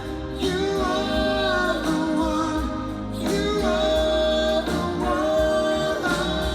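Music: a ballad with a singer holding long notes over a steady instrumental accompaniment.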